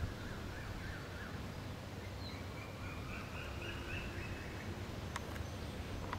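A songbird singing warbling runs of notes: a lower phrase at first, then a higher, longer one. A steady low rumble runs underneath, and two sharp clicks come near the end.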